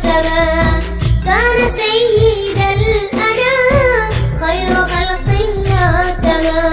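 Islamic ringtone: a high voice sings a wavering, ornamented melody over steady low bass notes and a regular beat.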